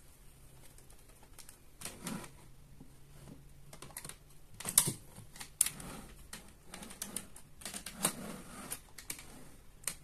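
Hard plastic clicks and clacks of DX Kamen Rider toy parts being handled: the Raising Sword with its Command Cannon Buckle being pushed into the side of a DX Desire Driver belt and seating in the slot. Irregular clicks, the loudest a little after the middle.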